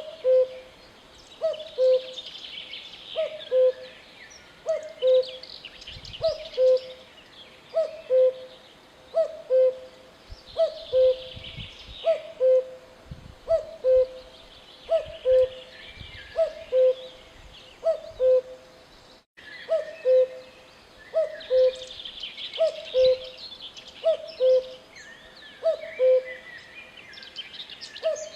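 Common cuckoo calling its two-note 'cuck-oo', the second note lower, over and over about once every second and a half. Other small birds chirp and twitter in the background.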